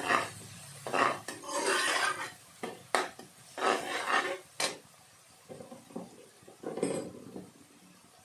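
A perforated metal skimmer stirring and scraping through frying onions and green chillies in a metal kadhai, in a run of strokes with a few sharp clinks of metal on the pan. The stirring stops about five seconds in, leaving a few light knocks and one short clatter near the end.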